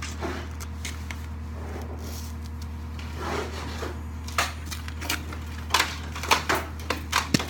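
A wooden 2x4 board being handled and shifted against the broom frame, giving a run of sharp knocks and clatters from about four seconds in, over a steady low hum.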